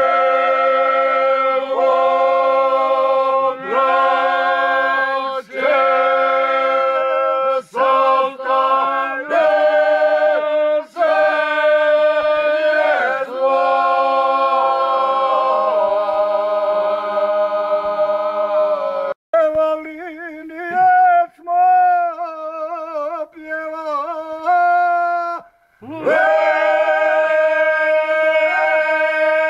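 A group of men singing a bećarac folk song unaccompanied, holding long drawn-out notes together. About two-thirds of the way in the singing thins out and goes quieter, and the full group comes back in a few seconds before the end.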